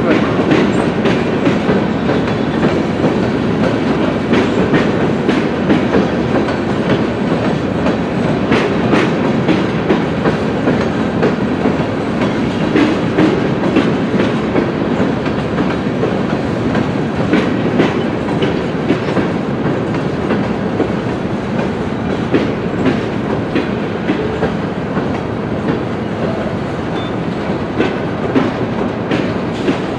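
A string of railroad tank cars being shoved slowly past, their steel wheels clicking and clattering irregularly over rail joints above a steady rolling rumble.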